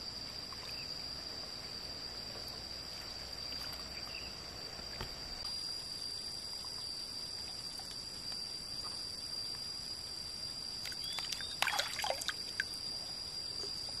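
Steady high-pitched drone of insects over faint water sounds, with a short burst of small splashes and clicks near the end from a fish being handled in a gill net.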